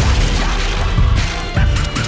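Background music with heavy bass and sharp percussive hits.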